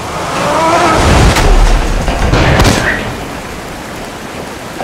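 Film sound effect of heavily gushing water with a deep rumble. It swells about a second in and eases back to a steady rush after about three seconds.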